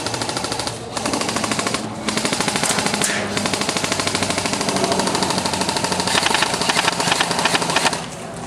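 Airsoft guns firing full-auto in long, rapid bursts, with short pauses about one second and two seconds in and another near the end.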